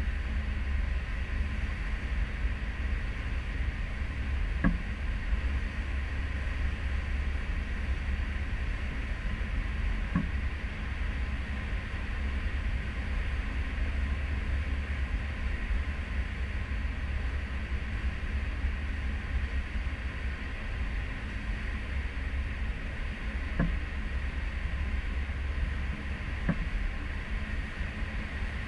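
Steady rumble and rushing noise of a cruise ship underway, heard from an aft balcony: wind on the camera, the churning wake and the ship's drive, with a heavy low rumble throughout. Four faint knocks come at intervals.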